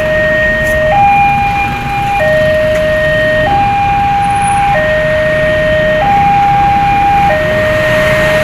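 Two-tone hi-lo siren, alternating between a higher and a lower pitch about every 1.2 seconds, over steady background noise.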